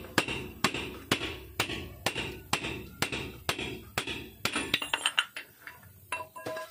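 Steady hammer blows on the steel pinion flange of a differential, about two a second with a metallic ring, then a flurry of lighter clinks as the flange works loose. The flange is being knocked off its splined pinion shaft to reach the pinion oil seal.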